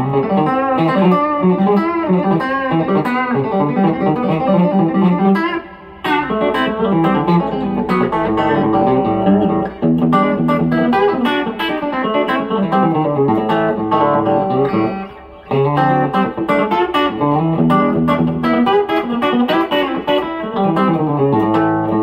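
Fender Player Series Telecaster electric guitar playing a fast run of picked country licks, with brief pauses three times.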